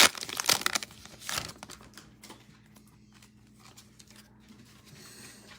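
Plastic trading-card pack wrapper crinkling as it is torn open and handled, loud for about the first second and a half, then only faint small clicks and rustles of the cards being handled.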